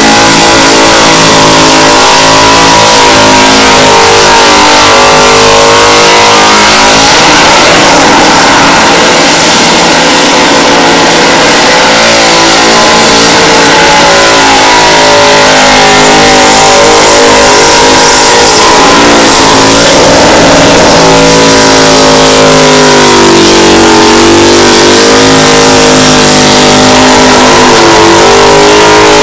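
Holden VK Commodore burnout car's engine held at high revs, the pitch wavering and dipping and recovering a few times, most deeply about two-thirds of the way in. Under it runs the steady hiss of the rear tyres spinning against the pad.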